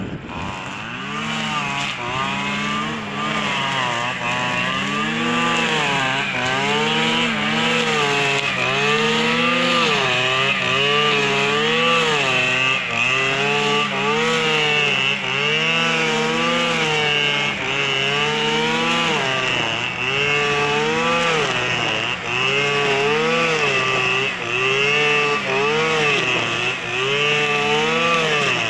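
Petrol brush cutter (line trimmer) engine running near full throttle while cutting tall grass. Its pitch sags and recovers in a steady rhythm, roughly once a second, as the cutting head is swung through the grass and takes load.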